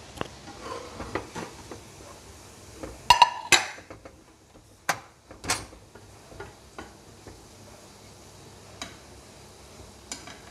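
A steel slotted spoon scraping and clinking in a frying pan as fried onion bhaji are scooped out of the oil. It comes as a string of sharp knocks, the loudest pair about three seconds in, two more around five seconds, then only a few light taps.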